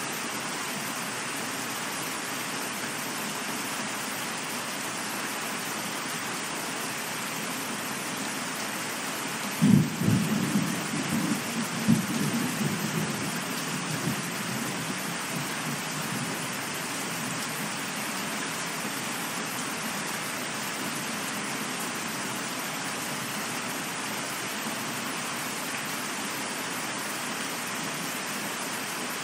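Steady rain falling, with a clap of thunder about ten seconds in: a sudden crack, then rumbling with a second sharp peak about two seconds later, dying away over the next few seconds.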